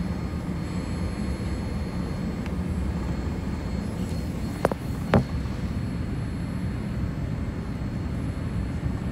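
Cabin noise of a Boeing 787 Dreamliner landing: a steady low rumble of engines and airflow, with two sharp knocks about half a second apart in the middle as the wheels touch down.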